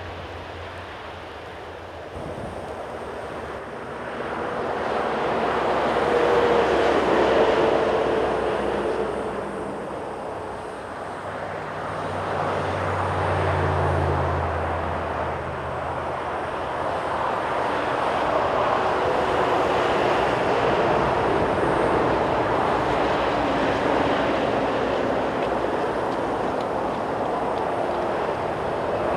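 Jet engine noise from an Airbus A350 airliner on approach to land: a broad rush that swells twice in the first half and then holds steady.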